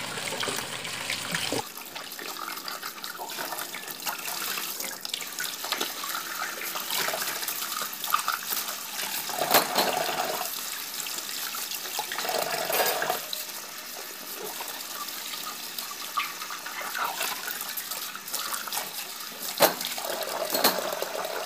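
Tap water running into a sink during hand dish-washing, with occasional sharp clinks of glass and dishware.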